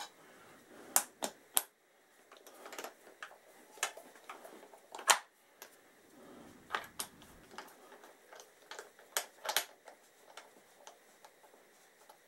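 Scattered light clicks and taps of small metal parts being handled on a motorcycle engine's rocker cover, irregular and a few seconds apart, with the sharpest clicks about a second in, around the middle and near the end.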